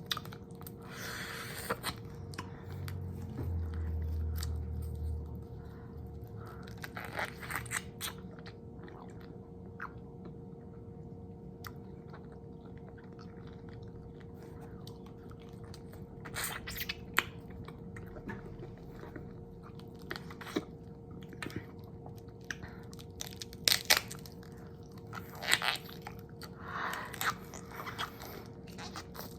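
Close-miked ASMR chewing and biting of crunchy food, with crunches coming in clusters and a quieter stretch in the middle. A low rumble runs for a few seconds near the start.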